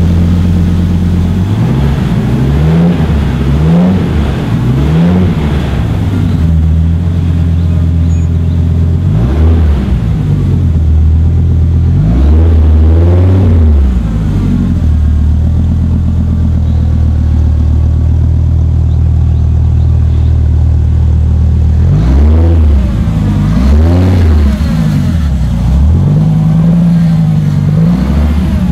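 1993 Dodge Viper's 8.0-litre V10 through a Magnaflow exhaust, idling and blipped: three quick revs early on, a few more single revs including a longer one, a stretch of steady idle, then another cluster of quick revs near the end.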